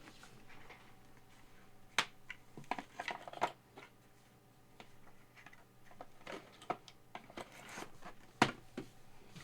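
Trading cards and their packaging being handled: scattered clicks, taps and short rustles of graded card slabs and boxes. The loudest sharp click comes about two seconds in, a cluster follows around three seconds, and another sharp click comes near the end.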